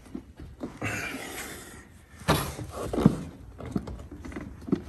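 Plastic parts being worked by hand and forced into place: rubbing and scraping with a sharp knock a little over two seconds in, a second thud about a second later, and a few lighter clicks.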